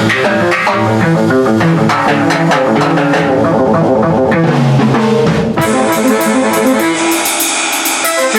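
Rock music with guitar and bass over a drum kit. About five and a half seconds in, the bass drops out and a run of quick, evenly spaced cymbal strikes comes to the front.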